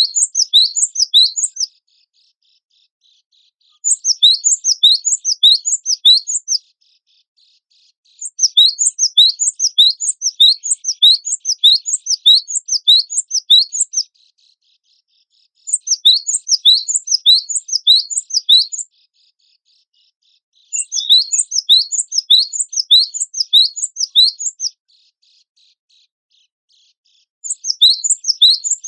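Cinereous tit (gelatik batu) singing: six bursts of rapid, high, down-slurred whistled notes, several per second, each burst lasting about two to six seconds with short pauses between, over a faint steady hiss.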